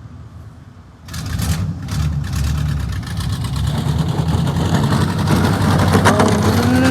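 Vehicle engine starting about a second in, then running and revving up, growing louder over the next few seconds.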